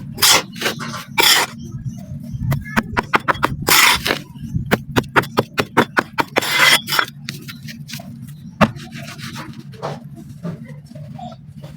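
Clumps of dry black sand being crushed and crumbled by hand: a quick run of crisp crunches and crackles, with a few longer gritty crumbling rushes, thinning out to scattered crackles near the end.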